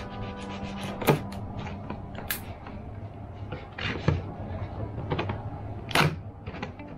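A knife cutting the seal on a cardboard camera box, then the box being handled and its flap opened: a run of small irregular clicks, scrapes and taps, with sharper knocks about a second in and at about six seconds.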